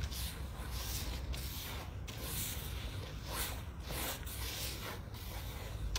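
Gloved hand rubbing fishing groundbait earth across a wire-mesh sieve of about 3–4 mm, pushing the soil through and breaking up the lumps. Each stroke gives a scratchy rasp of grit on the mesh, repeating roughly every half second to second.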